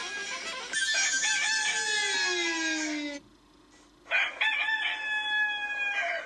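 Rooster crowing sound effect, heard twice: a long crow that falls in pitch at its end, then after a short pause a second, steadier crow that cuts off suddenly.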